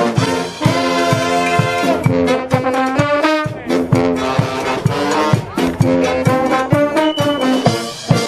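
Brass band playing live: trombones and trumpets in harmony over a steady drum beat.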